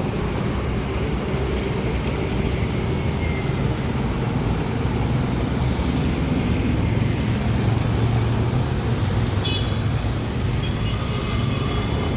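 Steady low rumble with a constant wash of noise, of the kind a running vehicle or road traffic makes, with a few brief high tones about nine and a half seconds in.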